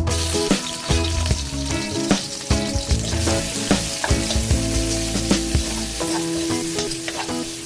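Food sizzling in a hot pan as it is stir-fried, with a spatula repeatedly scraping and knocking against the pan.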